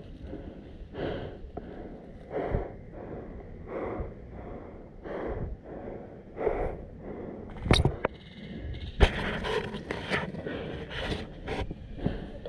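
A person breathing heavily and evenly close to the microphone, about one breath every second and a half. Past the middle come two sharp clicks, then a few smaller clicks and rustling.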